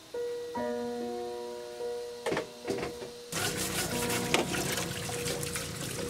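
Background music with plucked notes, a couple of knocks about two seconds in, then from about three seconds in a steady splashing of running water.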